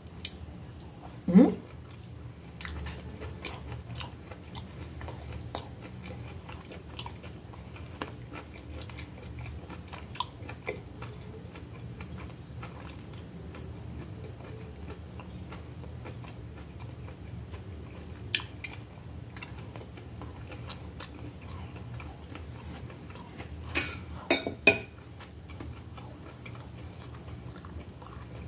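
A person chewing tough, pressure-cooked beef with their mouth close to the microphone, with small wet clicks throughout. A short falling hum about a second in, and a few sharp cutlery clinks on the plate near the end.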